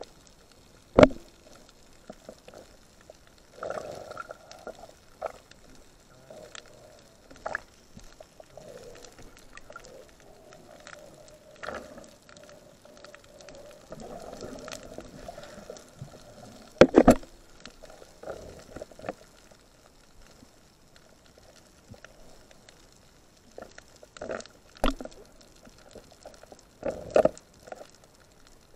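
Underwater sound of a night dive, heard through the submerged camera: muffled water noise and soft bubbling. Sharp knocks cut through it about a second in, a loud double knock just past halfway, and two more near the end.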